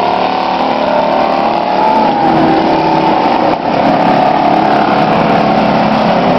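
Several demolition-derby truck engines running at once and revving, their overlapping pitches rising and falling.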